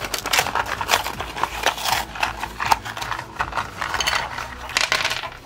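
A cardboard LEGO minifigure box being torn open by hand and its contents worked loose: a busy run of crackling cardboard and paper rustling mixed with small clicks.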